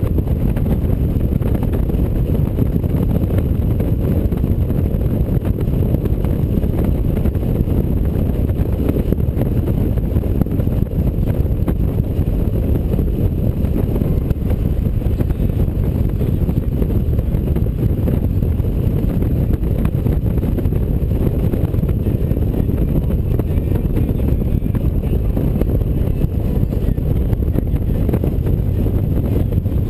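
Steady low rumble of wind and road noise on a touring motorcycle cruising at speed, with wind on the microphone.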